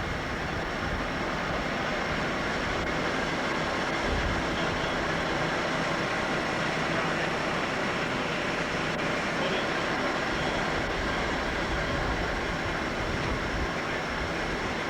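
Engines running steadily in a continuous mechanical drone with a thin, constant high whine above it. These are the salvage equipment's motors, likely the gasoline-powered pumps.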